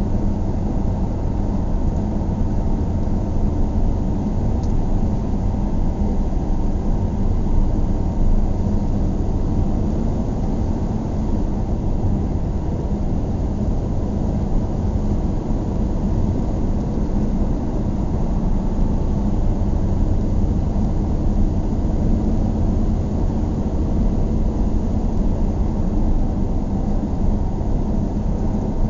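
Car driving at a steady pace: a constant low rumble of road and engine noise, with no change through the stretch.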